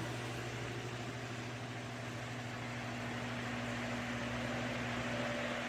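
Lasko Cyclone 18-inch pedestal fan running: a steady low motor hum under an even hiss of moving air.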